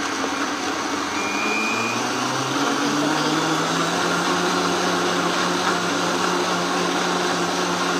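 Vitamix Drink Machine Advance blender running, its motor blending a smoothie in the jar. The motor's pitch rises about two seconds in and then holds steady.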